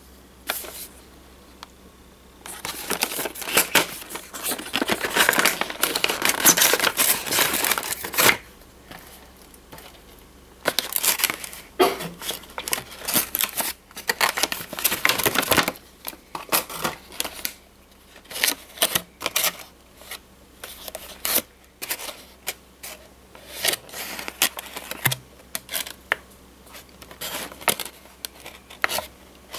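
Clear plastic box and moulded blister tray being opened and handled, crackling and crinkling. A dense stretch of crinkling for about six seconds, a second run after a short pause, then scattered crackles and clicks.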